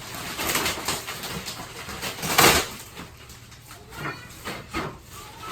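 Rustling and crinkling of the mattress's plastic packaging being handled, in several irregular noisy bursts, loudest about two and a half seconds in.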